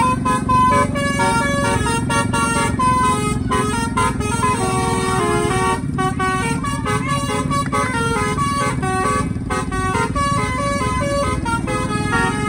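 Bus telolet horn playing a fast, continuous tune of short stepped notes from its electronic Takur horn module, over a steady low rumble.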